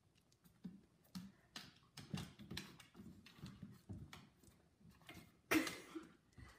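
Faint, irregular clicking and tapping of a large dog's claws on a hardwood floor as it shuffles about, with a louder scuffle about five and a half seconds in.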